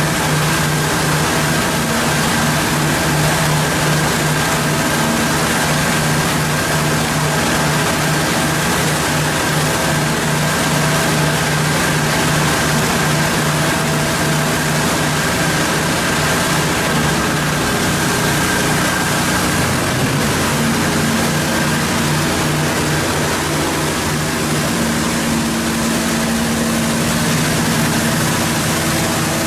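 A 300-bar high-pressure washer unit running steadily: a motor-driven pump hums under the hiss of the water jet blasting the tunnel wall. The low hum shifts in pitch about twenty seconds in.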